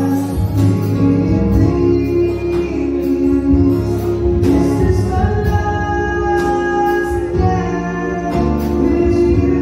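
An acoustic band playing live: a sung melody with long held notes over instrumental accompaniment and regular percussion hits.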